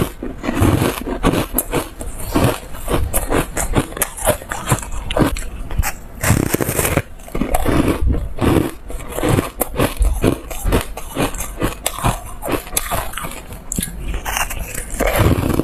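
Close-up chewing and crunching of bites of yellow foam ice: a steady run of small crunches and crackles as the frozen pieces are bitten and chewed, with a fresh bite near the end.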